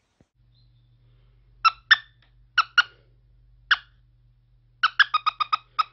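Squeaky plush toy squeezed repeatedly: short high squeaks, first in pairs, then a quick run of about six near the end. A faint steady low hum runs underneath.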